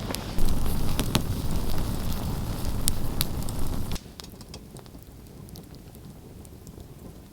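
Campfire crackling: a steady hiss with scattered sharp pops. About four seconds in it drops suddenly to a quieter crackle with occasional pops.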